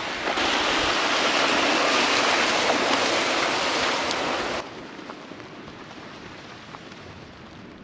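Creek water rushing under a wooden footbridge: a loud, steady rush for about four and a half seconds that cuts off suddenly to a much fainter wash of water.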